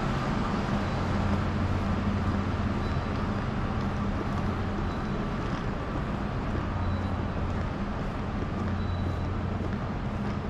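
Steady low droning hum with an even hiss: the ambient noise of a large airport terminal hall.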